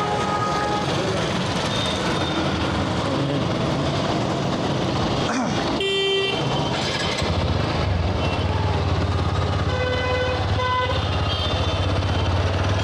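Busy road traffic with vehicle horns honking: one strong horn blast about six seconds in and more horns around ten to eleven seconds. A low engine drone comes up about seven seconds in and holds steady.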